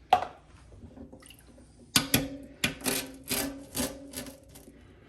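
Boiled eggs knocked against a hard surface to crack their shells: one sharp knock, then about two seconds in a quicker run of about six knocks with a faint ring.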